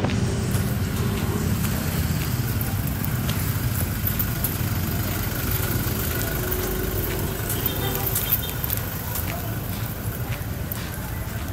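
Steady low rumble of road vehicles and engines, with a few small clicks of the phone being handled.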